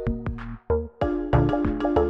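Background electronic music with a quick, steady beat over sustained synth tones.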